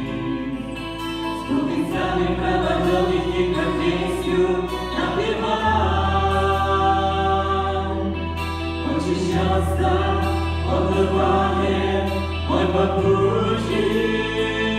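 A choir sings a Christian song over instrumental accompaniment, with a sustained bass note that changes every few seconds.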